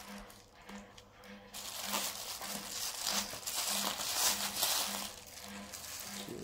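Plastic bubble-wrap and bag packaging crinkling and rustling as it is handled, loudest in the middle of the stretch.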